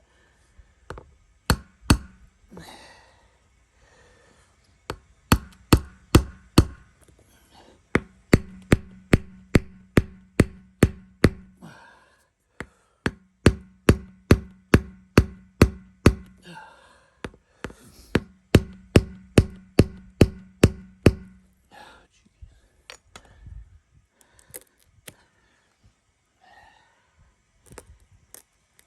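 A hammer tapping repeatedly on a tire plug insertion tool to drive it into a nail puncture in a tire. The tool is stuck because the puncture goes through a steel belt. The strikes come in runs of about two to three a second with a ringing tone under them, and stop about 21 seconds in, leaving faint handling clicks.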